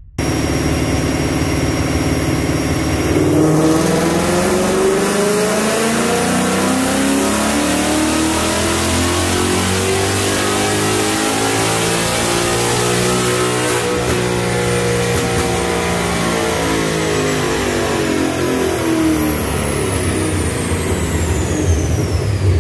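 Gen 3 Coyote 5.0 V8 in a 2020 Mustang GT, breathing through Stainless Works 2-inch long-tube headers, on a chassis dyno. It runs steadily for about three seconds, then makes a full-throttle pull with the revs climbing for about ten seconds, then winds back down. A high whine falls in pitch as it slows.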